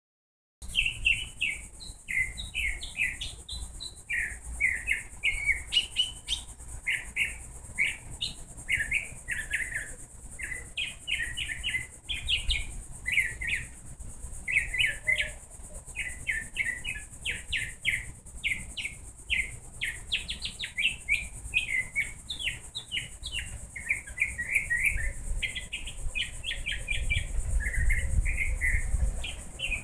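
Songbirds chirping and singing nonstop in quick runs of short notes, over a steady high hiss. A low rumble comes in near the end.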